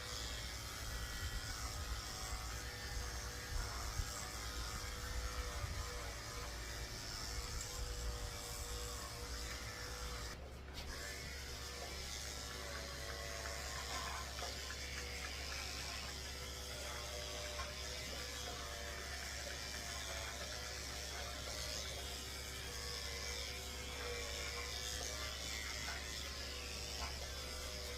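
Electric dog clippers with a number 7 blade running steadily while shaving a dog's coat, a low hum that wavers slightly in pitch.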